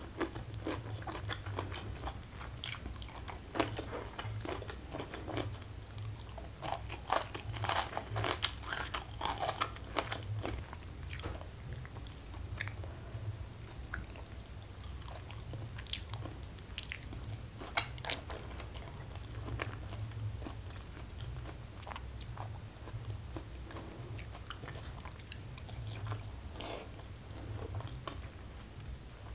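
Close-miked chewing and crunching of a rice meal eaten by hand, with short crackles and clicks that are busiest about seven to ten seconds in, over a steady low hum.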